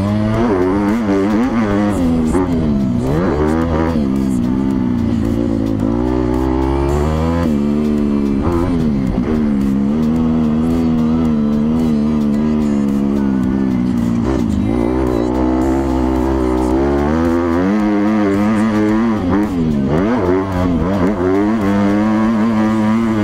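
Dirt bike engine revving hard and dropping off again and again as the rider throttles and shifts, the pitch climbing on each gear and falling sharply a few times, heard through a helmet camera.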